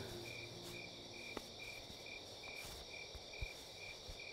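Crickets chirping at night: a regular high chirp about two or three times a second over a steady, faint insect trill.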